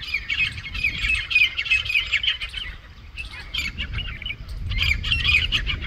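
A flock of small birds chattering and chirping in dense, overlapping bursts. It eases off about three seconds in and picks up again near the end, over a low rumble.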